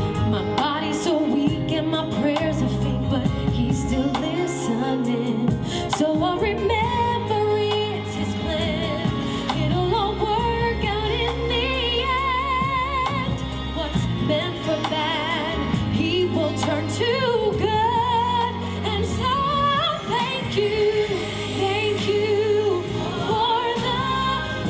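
A woman singing a Christian gospel-pop song with vibrato, over a backing track with steady bass.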